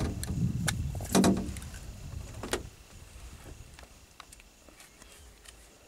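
Knocks and clicks from handling a freshly caught fish and tackle in a fishing boat: a few sharp knocks in the first two and a half seconds, one with a dull thud, then fainter scattered taps.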